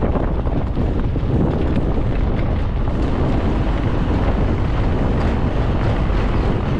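A car driving along: a steady rush of road noise and wind buffeting the microphone.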